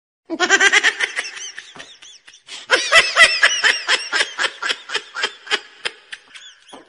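A person laughing in quick, high-pitched rhythmic bursts, in two bouts: a short one at the start and a longer, louder one from under a second later that tails off toward the end.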